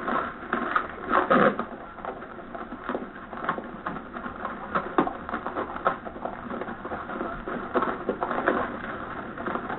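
Horse hooves clopping in an irregular run of clicks as a horse is ridden away at a walk on a dirt street.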